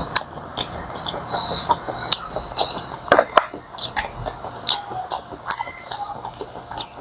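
Close-up eating sounds: irregular wet smacks and clicks of chewing and handling pieces of a seafood boil.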